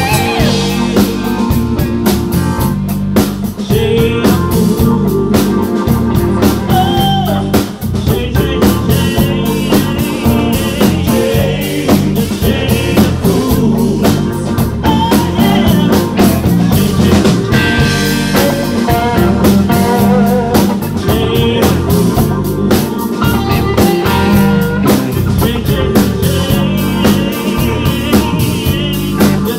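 Live blues-rock band playing: electric guitar, bass guitar and drum kit, with singing.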